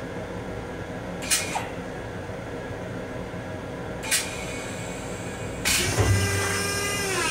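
Steady running hum of a Long Island Rail Road M7 electric railcar, heard inside its small restroom. Three short hisses come about a second in, about four seconds in, and near the end. The last hiss is longer and carries a whine that falls in pitch.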